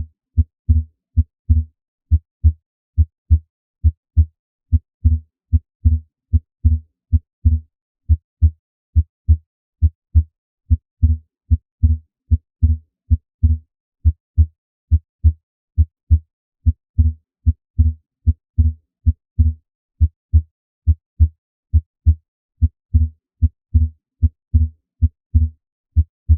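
Heart sounds heard by auscultation: a steady, regular rhythm of low thumps, the first and second heart sounds. The second sound is physiologically split, the aortic and pulmonic valves closing a moment apart, with the split widening on inspiration. This is a normal finding.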